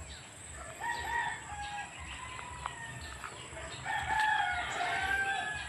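Rooster crowing twice: a short crow about a second in, then a longer, louder crow near the end.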